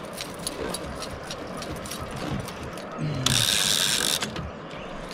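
Fishing reel's ratchet clicking in irregular spurts as a hooked blue catfish works the line, with a louder continuous burst lasting about a second, about three seconds in.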